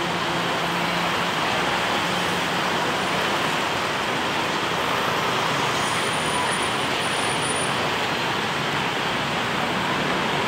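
Steady road-traffic noise: an unbroken wash of passing cars and motorbikes.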